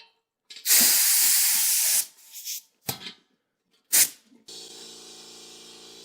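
Bead blaster firing a loud blast of compressed air into a 35-inch tire for about a second and a half to seat its bead, followed by a few sharp knocks. About four and a half seconds in, a steady hum starts.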